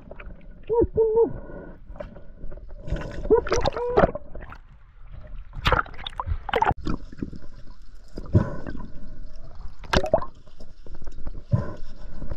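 Water sloshing and gurgling around an underwater camera, in irregular surges with a few sharp knocks. There are short low tones about a second in and again around three to four seconds in.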